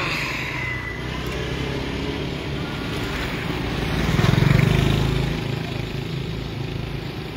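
A motorbike passes close by on the road: its engine hum rises to a peak about four seconds in and then fades, over a steady background of street traffic.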